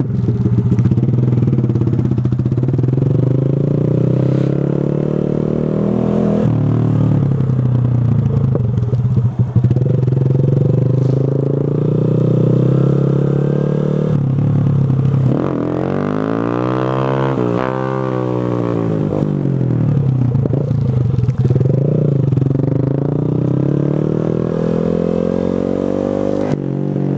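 Honda Grom's 125 cc single-cylinder engine pulling through the gears, the revs climbing and then dropping at each upshift. Partway through there is one sharp surge of revs and a fall, typical of an attempt at a wheelie.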